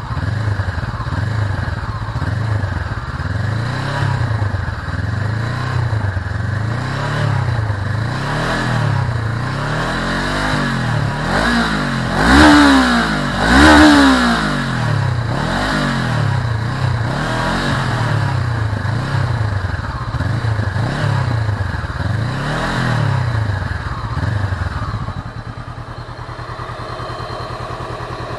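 Honda CBR500R's 471cc liquid-cooled parallel-twin engine revved again and again while standing, the exhaust note rising and falling about every second and a half, with the two highest revs about halfway through. Near the end it drops back to a steady idle.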